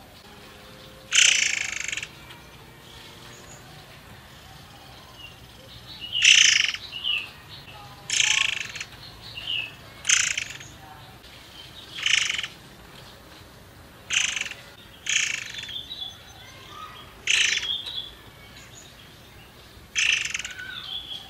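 A young, untrained murai air songbird in a cage singing in short, loud bursts: about ten brief high phrases, one every one to three seconds, with faint chirps between them.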